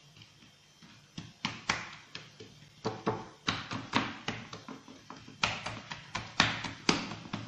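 Hands patting and pressing raw pizza dough flat in a frying pan: a quick, irregular run of slaps and taps, two or three a second, starting about a second in and getting louder.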